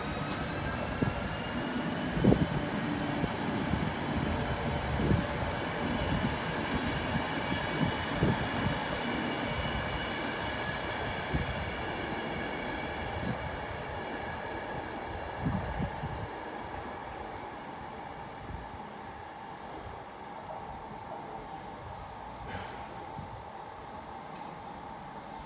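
Passenger coaches of a departing electric-hauled express rolling away over the rails, with repeated wheel knocks over rail joints, slowly fading. A whine rising in pitch is heard in the first couple of seconds, and a thin high squeal comes in near the end.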